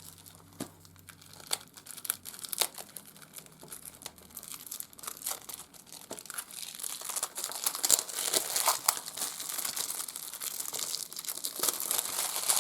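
Plastic wrapping being handled, crinkled and torn off a Blu-ray case: a few scattered crackles at first, then steady crinkling that grows louder from about halfway through.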